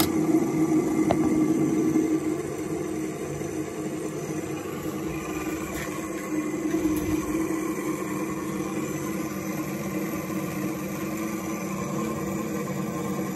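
Steady electric machine hum with several steady tones, from a powered-up air-conditioner control-board test setup. It is loudest for the first two seconds, then settles slightly lower and holds steady.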